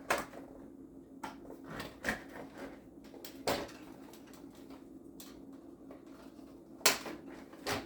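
Scattered clicks and knocks of hard plastic toy-vehicle parts being handled as the shell is worked off the frame, with a sharper knock about seven seconds in. A faint steady hum runs underneath.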